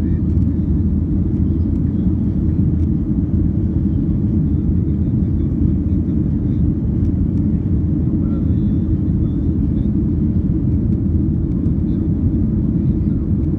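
Steady low drone of a jet airliner's engines and rushing air, heard from inside the passenger cabin as it climbs after takeoff.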